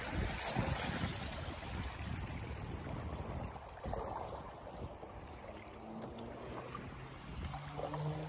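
Water rushing and splashing around a kayak's hull as it runs over a shallow riffle, with paddle strokes in the water. The rush eases to gentler lapping as the river calms, and faint steady low tones come in near the end.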